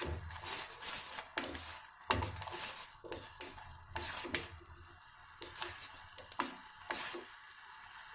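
A spoon scraping and clinking against a cooking pot in irregular strokes, stirring a jaggery, honey and ghee syrup as it cooks.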